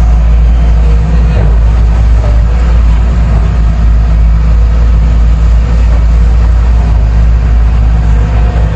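Heavy diesel engine of a JCB excavator running steadily, a loud low rumble with no break.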